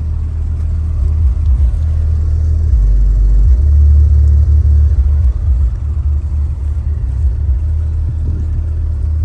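Deep bass from a car audio system's subwoofers played loud, the low notes shifting every second or so and loudest around the middle.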